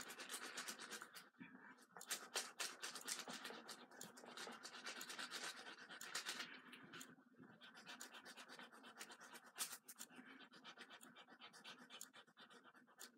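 Faint scratching and rubbing of a Pilot FriXion erasable gel pen on paper, a steady run of many small scratchy strokes that grows a little quieter about halfway through.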